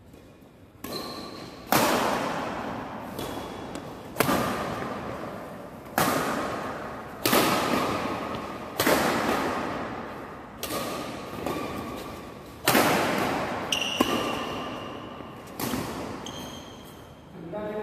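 Badminton racquets striking a shuttlecock in a fast doubles rally: about a dozen sharp hits, one every second or two. Each hit echoes and dies away slowly in the large hall.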